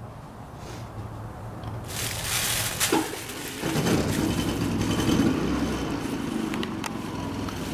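A loud rush of noise about two seconds in, then a steady, dense engine-like running sound from about four seconds on.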